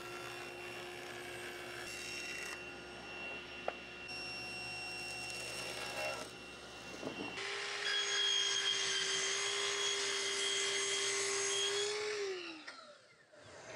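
Table saw running steadily while thin veneer strips are ripped. About seven seconds in, a miter saw's motor takes over with a brighter whine, then winds down with a falling pitch near the end.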